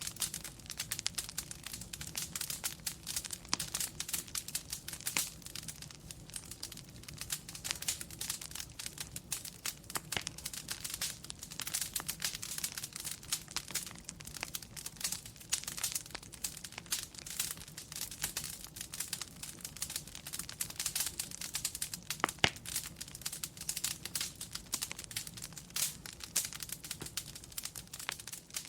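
Wood fire crackling steadily, with many small sharp pops and one louder pop late on, over a steady low hum.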